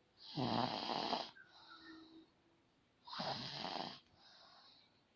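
A person snoring: two loud, rasping snores about three seconds apart, each followed by a quieter breath.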